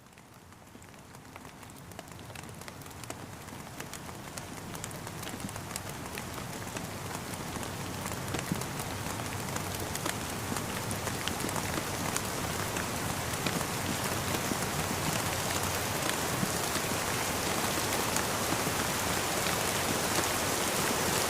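Rain falling on a surface: an even hiss with many separate drop ticks, fading up steadily from faint to fairly loud.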